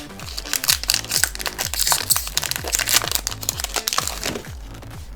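Foil Pokémon booster pack wrapper crinkling as it is handled and torn open, stopping about four seconds in. Background electronic music with a steady beat plays throughout.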